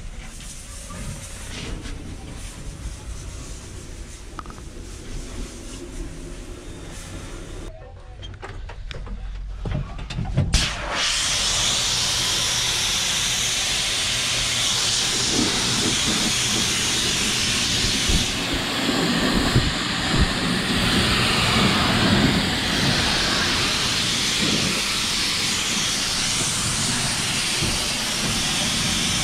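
High-pressure water jet from a Gaocheng GC-RS3 2300-watt pressure washer's spray gun, hissing steadily against the inside of a truck cab's roof lining. The spray starts about ten seconds in, after a quieter stretch, and runs on without a break.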